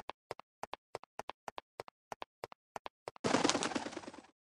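Footstep sound effects, quick paired taps about three a second, as a LEGO minifigure walks. About three seconds in they give way to a second-long flutter of wing flaps as an owl flies in.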